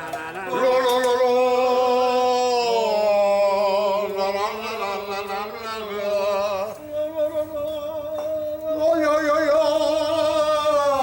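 Singing: a voice holds long notes with a wavering vibrato, changing pitch every few seconds, over a lower held accompanying note.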